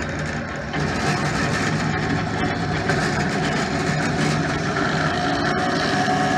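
Rockwell Delta 15-665 drill press running under its three-phase motor, with a steady mechanical hum and whine from the variable-speed spindle drive. The speed is being dialled up from the bottom of the range, and the whine rises slightly in pitch toward the end.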